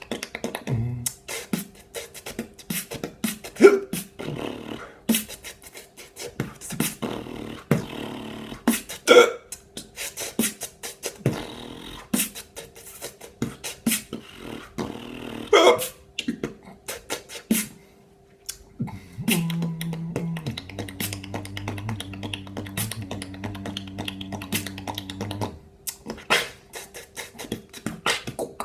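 Mouth beatboxing: a fast vocal drum beat of clicks and percussive strokes, broken now and then by hiccups. Past the middle it pauses briefly, then a held, pitched vocal bass tone runs under the beat for several seconds.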